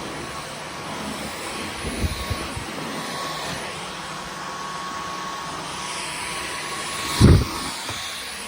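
Dyson V15 Detect Absolute cordless stick vacuum running with a steady whine. There is a dull thump about two seconds in and a louder thump near the end.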